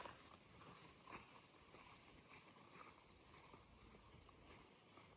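Near silence: faint outdoor ambience with a thin steady high tone and a few soft ticks and rustles, one just after a second in.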